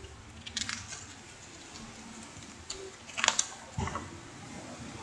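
Paper instruction leaflet being handled and unfolded: a few short crackles of paper, the sharpest a little past three seconds in, with a soft knock just after.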